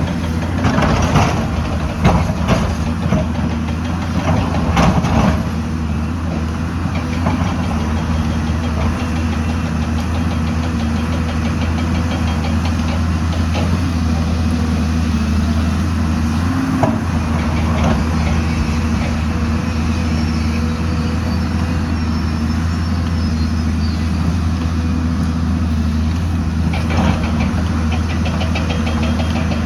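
Heavy excavator's diesel engine running steadily with a low hum. Sharp metallic knocks come several times in the first few seconds, and once each about halfway and near the end.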